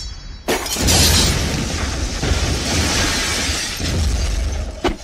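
Sound-effect explosion and crash of breaking rubble: a sudden loud blast about half a second in, then a long, dense rumble of debris, with another sharp crash near the end.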